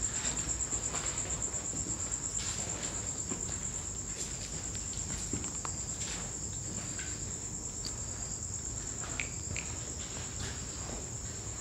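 A cricket trilling without a break, a high, fast-pulsing trill, with a few faint crunches of footsteps on scattered debris.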